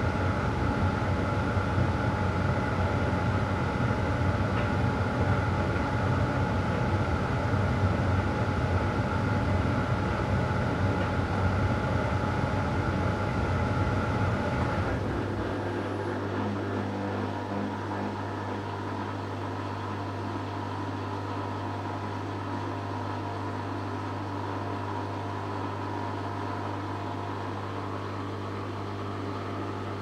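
Electrolux EW7H578S heat pump tumble dryer running at the very end of its programme: the drum tumbles the load with a steady rumbling whir. About halfway through, the tumbling stops abruptly and only a quieter, steady low hum from the machine goes on.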